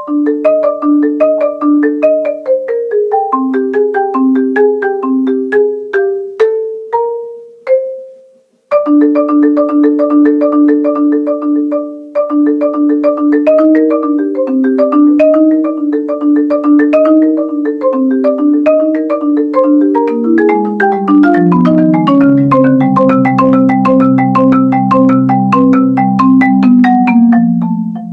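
Solo marimba played with four yarn mallets: quick runs of struck notes, breaking off briefly about eight seconds in, then moving down into the low register with long rolled notes near the end.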